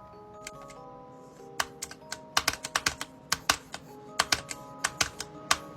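Soft background music of gentle held chiming notes, with a quick, irregular run of sharp clicks from about a second and a half in, like keys being typed on a keyboard.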